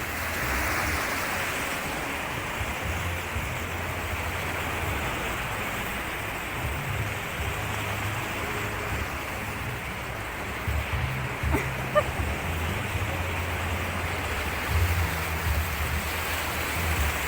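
Sea surf washing onto a beach, with gusty wind buffeting the phone microphone as an uneven low rumble. Two small knocks about two-thirds of the way through.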